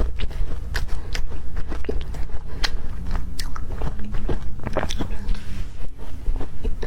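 Close-up biting and chewing of crunchy matcha-dusted candy and ice, a rapid irregular run of sharp crunches and crackles.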